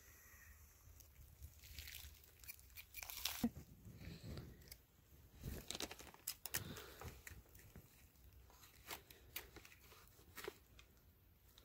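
Faint, scattered crunching and rustling of dry leaf litter as someone shifts and steps about, with a few light clicks, loudest about three seconds in and again around the middle.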